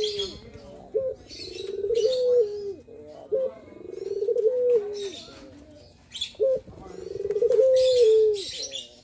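Male Barbary dove (ringneck dove) giving its perch-coo three times. Each phrase is a short note followed by a long, rolling coo that rises and then falls away. Small birds chirp high in the background.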